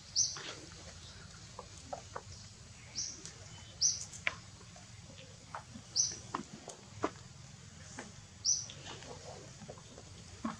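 Five short, high-pitched animal chirps, a couple of seconds apart, over scattered faint clicks and a low steady rumble.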